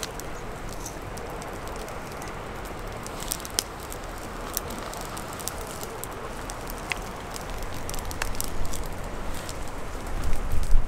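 Wood campfire burning, with a steady hiss and frequent sharp crackles and pops. A louder low rumble builds near the end.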